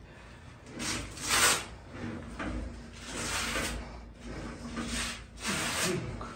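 Plate-loaded leg press sled sliding up and down its rails during single-leg reps: a rushing slide with each stroke, about six in a row.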